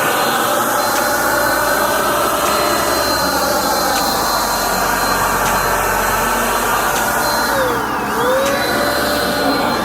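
Electric paint spray gun running steadily, a motor whine over the hiss of air and spray as clear coat is sprayed.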